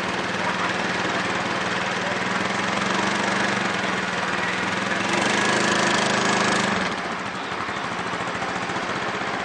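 Motorcycle engine idling steadily, heard close to the exhaust. It swells louder and a little higher for a couple of seconds past the middle, then drops back.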